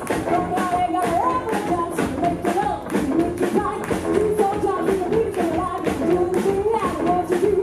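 Live rock'n'roll band playing with a steady beat, an upright double bass in the line-up, and a woman singing lead.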